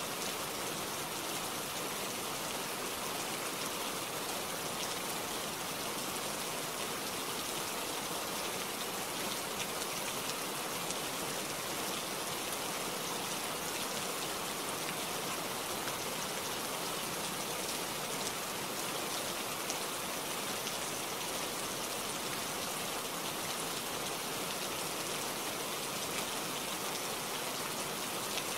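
Steady rain falling through tree leaves, an even hiss that does not change.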